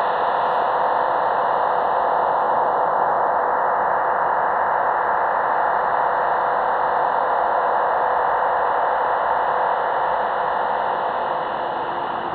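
Unidentified whooshing signal received on shortwave at 15105 kHz upper sideband through a Tecsun PL-660 receiver. It is a steady rushing noise concentrated in the middle of the range, easing slightly near the end.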